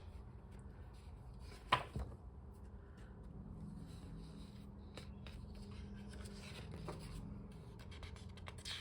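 Paper planner pages and inserts being handled: soft paper rustling with a few light clicks and taps, the sharpest about two seconds in.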